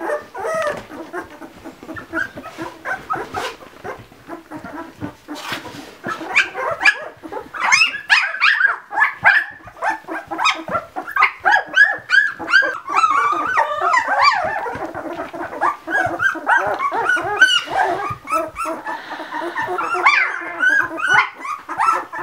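Ten-day-old Labradoodle puppies whining and squealing in many short, high, rising-and-falling cries. The cries are sparse at first and become a rapid, busy chorus about six seconds in.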